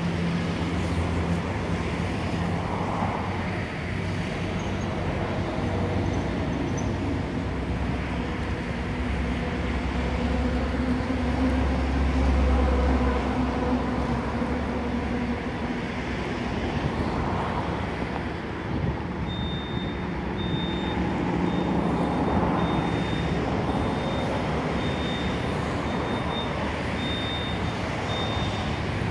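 Road traffic: a steady low engine rumble from idling and passing motor vehicles, with cars swelling past now and then. About two-thirds of the way through, a high electronic beep starts repeating at an even pace.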